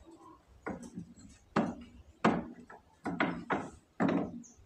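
Kitchen knife chopping down onto a wooden cutting board, about seven sharp, unevenly spaced strokes.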